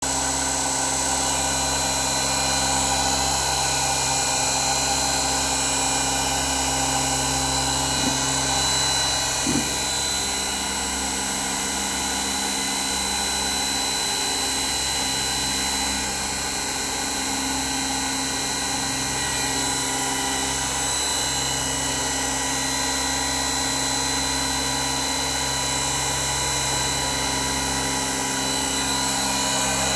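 CNC milling machine running a machining job, its spindle giving a steady high whine made up of several pitches. Two short clicks come about eight and nine and a half seconds in.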